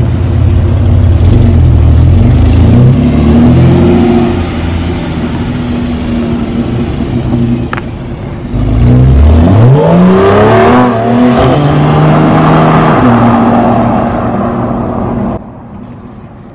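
Porsche 911 (991 Carrera S) flat-six running through a freshly installed SharkWerks race exhaust as the car drives off. About halfway through it accelerates hard, the pitch climbing steeply, then holds a steady note before the sound drops away suddenly near the end.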